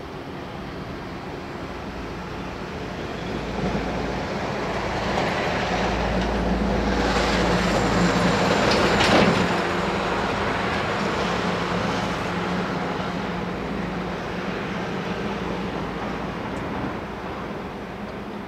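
Taipei Metro Bannan line electric multiple-unit train running along the track as it pulls out of the depot. The running noise, with a steady low hum, swells to its loudest about nine seconds in and then slowly fades.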